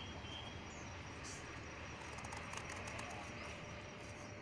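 Quiet outdoor background: a steady low hiss with a few faint bird chirps and some soft faint clicks.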